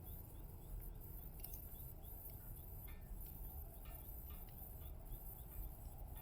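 Small wood fire in a titanium solo fire pit crackling, with scattered sharp pops, over a low steady rumble.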